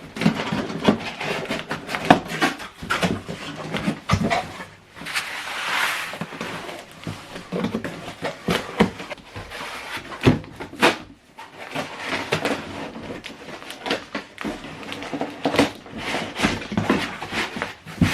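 Packaging being handled while a soundbar set is unboxed: irregular rustles, scrapes and knocks, with a longer smooth rustle about five to seven seconds in.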